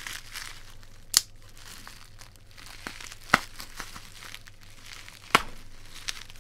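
Plastic bubble wrap crinkling as it is handled and pulled open, with three sharp snaps about two seconds apart.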